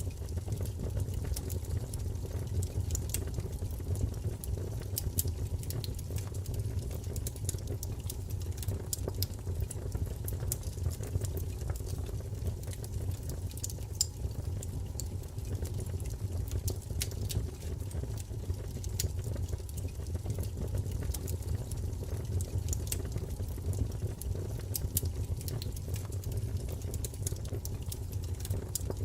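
Wood fire burning in a fireplace: a steady low rumble of flames with frequent small, irregular crackles and pops.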